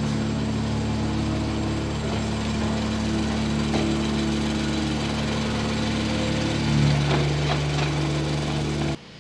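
An engine running steadily, with a small shift in pitch about seven seconds in, cut off abruptly near the end.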